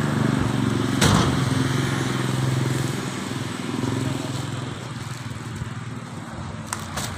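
A motor vehicle's engine running steadily, then fading away over the second half. A single sharp knock comes about a second in, and a couple of faint clicks near the end.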